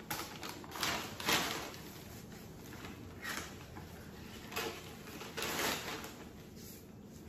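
Crinkling and rustling of a silver foil packaging bag and tissue paper being handled while clothing is pulled out of a box, in several short rustles.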